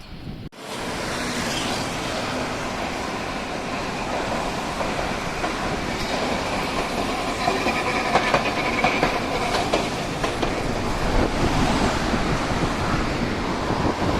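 Hiroden streetcar passing on street track, its wheels clicking over the rail joints, with wind on the microphone.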